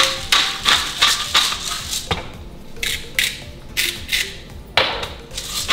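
A hand-twisted salt and pepper mill grinding seasoning: a run of short gritty crunches, several a second, with brief pauses between twists.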